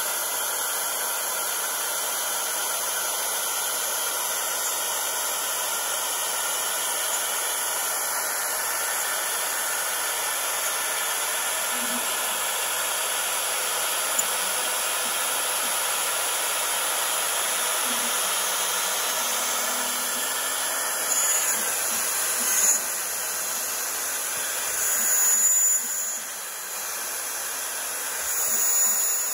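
Desktop CNC router's spindle running steadily while a 1/8-inch bit mills a contour through 2 mm aluminium sheet. The sound swells louder a few times in the last third.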